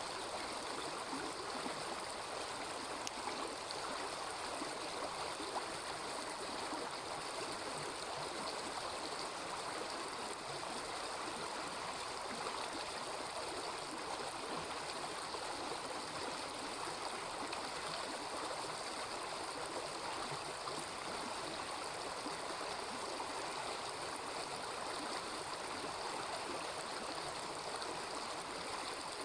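A small river babbling and rushing steadily.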